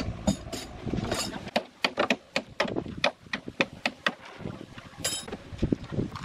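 Irregular sharp clicks and knocks, a few a second, from metal clamps being fitted and fastened along the rim of a plastic cement-pot mold.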